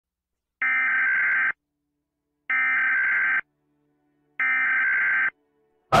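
Electronic alarm beeps: three identical steady, buzzy tones, each just under a second long and about two seconds apart. Right at the end a loud, sudden burst of noise begins.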